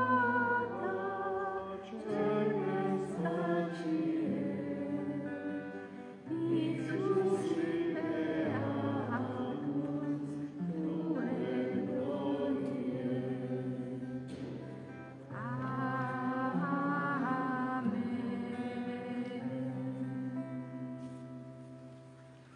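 Choir singing a slow piece over long held low chords. It fades out near the end.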